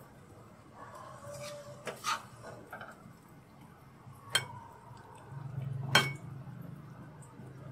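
A spoon clinking and scraping against a ceramic serving bowl as fried potato slices are spooned into it. There are a few sharp clinks: two close together about two seconds in, one past the middle, and the loudest about six seconds in, some with a brief ring.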